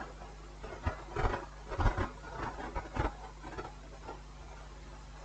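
Faint small taps and scratches of multimeter probes and hands working on a TV's button circuit board, clustered in the first three seconds and dying away after, over a faint steady low hum.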